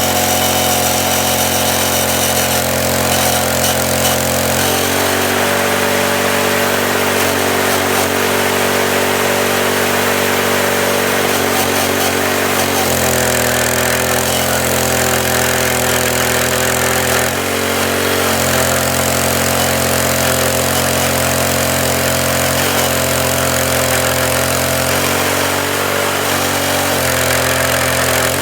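Sawmill engine running steadily, its pitch stepping slightly up and down several times.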